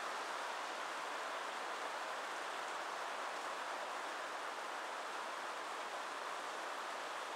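Steady, even rushing hiss with no thunderclap or other distinct event.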